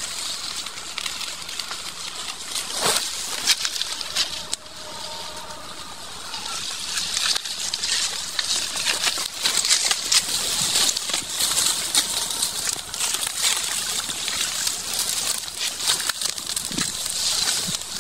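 Leafy branches and twigs rustling and snapping as dense brush is hacked and pushed aside with a machete, in many short irregular cracks over a steady high rustle.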